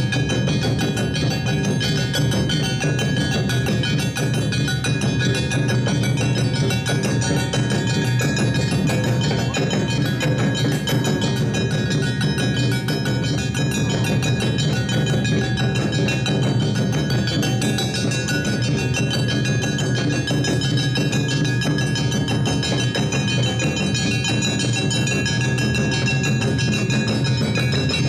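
Awa odori festival band playing without a break: bright ringing metal hand gongs (kane) struck over drums.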